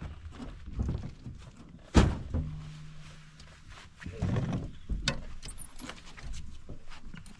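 A single sharp thunk about two seconds in, the loudest sound, with a short low hum right after it and smaller knocks and rustles around it.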